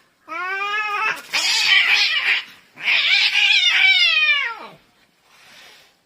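Domestic cats caterwauling in a fight: two long, loud yowls, the first turning into a harsh screech partway through, the second sliding down in pitch as it ends, followed by a brief faint noise.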